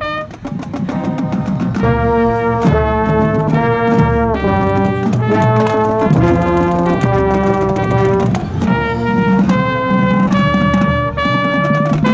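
Marching band playing loudly: the brass section holds full chords that shift every second or two, with drum hits under them.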